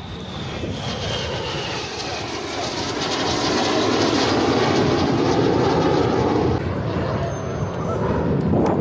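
Jet engines of display aircraft flying past: a rushing jet roar that swells about three seconds in, holds for a few seconds, then eases before building again near the end, with a faint whine falling in pitch early on.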